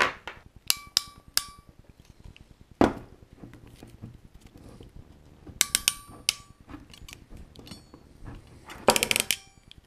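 Metal hand tools clicking and clinking as they are handled on a desk, some clicks ringing briefly. Near the end, a quick run of clicks as the ratcheting crimping pliers close on the antenna cable connector.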